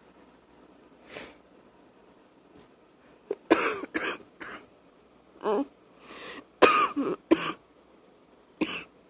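A woman's wet cough coming in fits: a rapid string of coughs about three and a half seconds in, a single cough after that, a second string near seven seconds, and one last cough near the end.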